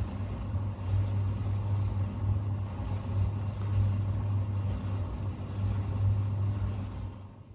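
Thompson TD120 compact vented tumble dryer running empty: a steady low hum with an even drum-and-fan rumble over it, dying away near the end.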